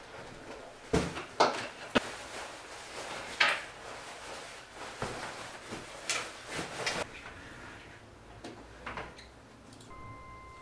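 Scattered knocks, clunks and rustles of things being handled and set down in a small room, like a drawer or door closing. A faint steady tone comes in near the end.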